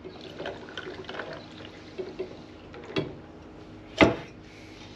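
Iced tea poured from a glass mason jar into a glass of ice, the liquid trickling over the ice with a few light clicks. About four seconds in, a sharp knock as the glass jar is set down on the wooden table.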